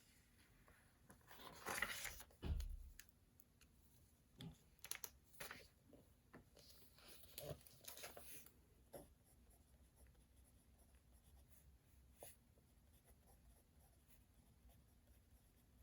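Faint desk sounds of someone studying: a paper rustle and a soft low thump about two seconds in, then scattered pen scratches and small clicks that die away to quiet room tone by the second half.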